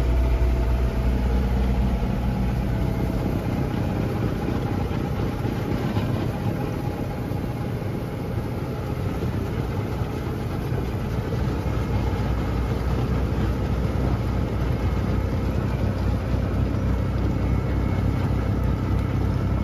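Lovol tractor's diesel engine running steadily, easing a little about eight seconds in and then building again.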